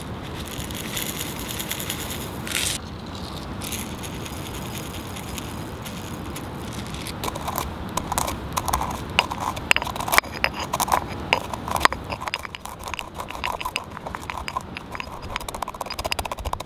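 Pink rock salt and whole black peppercorns poured into a stone mortar, then crushed and ground with the stone pestle: a rapid run of gritty crunches and clicks from about seven seconds in.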